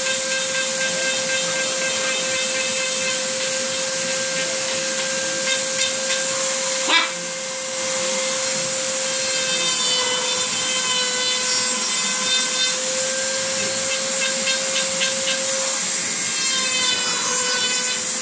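A small high-speed rotary grinding tool runs steadily, grinding down a parrot's beak and nails, with its pitch dipping slightly twice. There is one sharp click about seven seconds in.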